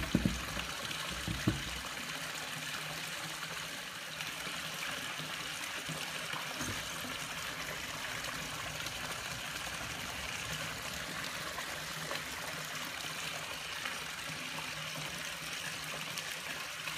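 Steady trickle of running water, as from the swimming pool beside the patio, with a few knocks in the first second and a half.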